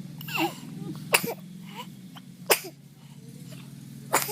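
A person coughing: about four sharp, separate coughs spread across a few seconds.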